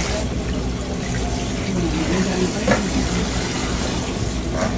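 Steady low hum under an even rushing noise that holds without pauses.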